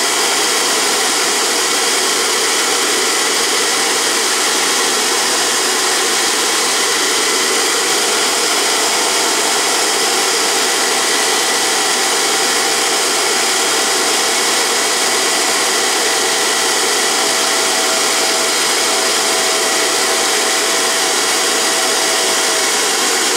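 Dumore toolpost grinder running at speed while its abrasive wheel is dressed with a diamond nib, making a steady high whine with hiss. The dressing trues the wheel face to the 30-degree angle of the compound.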